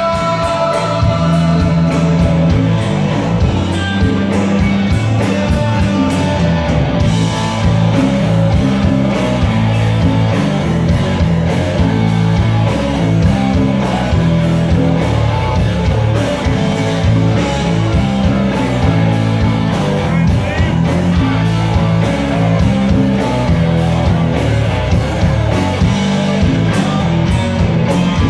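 Live rock band playing loudly: electric guitars, bass guitar, drum kit and hand percussion, heard from the audience in a hall.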